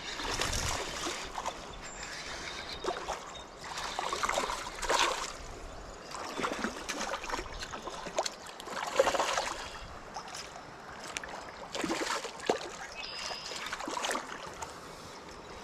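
Creek water splashing and trickling, coming in irregular louder swells with scattered clicks and knocks.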